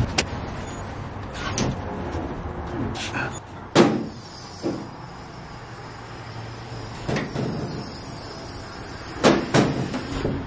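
Hinged aluminium diamond-plate camper top being lifted open and lowered on its gas struts: a series of sharp metal clunks and knocks, the loudest about four seconds in and two more close together near the end.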